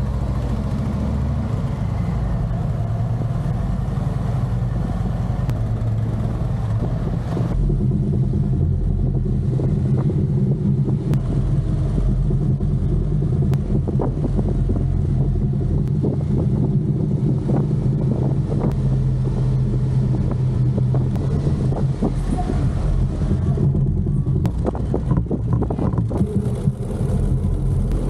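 Harley-Davidson Street Glide Special's V-twin engine running at low speed, a steady low rumble, inside an underground parking garage for most of it.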